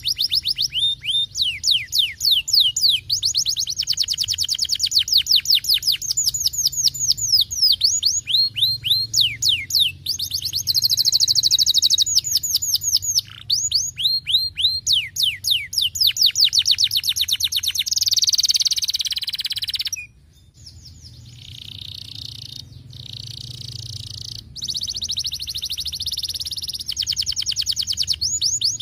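Domestic canary singing: long, fast trills of repeated downward-sweeping notes, one trill type changing to the next. There is a brief break about twenty seconds in, followed by a denser, buzzier rolling trill.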